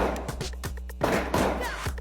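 Background music with a steady beat, a deep sustained bass and quick ticking hits, with a heavy hit at the start and another about a second in.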